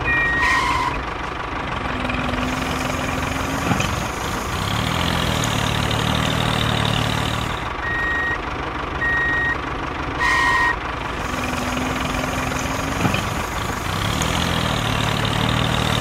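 Heavy truck sound effect: a diesel engine running, with short high reversing beeps now and then. The same few seconds repeat about every eight seconds.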